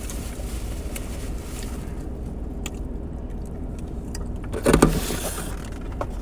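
Steady low rumble of a car cabin, with scattered faint clicks from eating chicken wings and a short louder noise about five seconds in.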